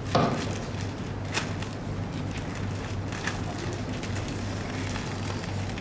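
Steady low electrical hum from the church sound system, with a short sound right at the start and a couple of faint clicks.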